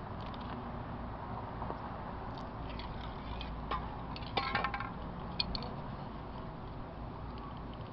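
Steady low background rumble, with a few light clicks and a short cluster of rattling clicks about halfway through: spray paint cans being picked up and handled between coats.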